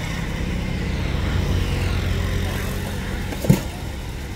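Steady low engine drone, like a motor vehicle running, with one brief sharp sound about three and a half seconds in.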